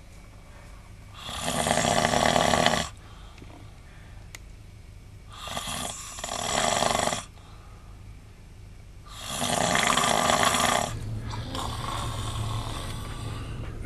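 A man snoring heavily: three loud snores about four seconds apart, each lasting a second or two, then a quieter, longer one near the end.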